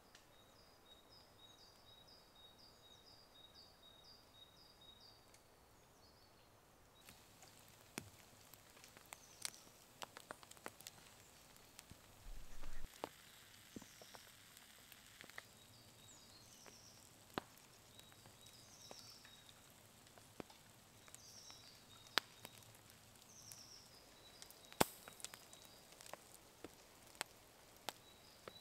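Faint winter-forest quiet with a small bird calling a quick, regular series of high notes. After about seven seconds come sparse, sharp crackles and pops from a smouldering nying long-log fire, with occasional bird notes behind.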